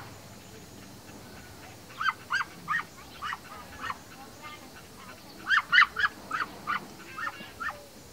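A flock of domestic ducks calling in short, rising, honking quacks, starting about two seconds in and coming in two loose runs of several calls each, the second run louder.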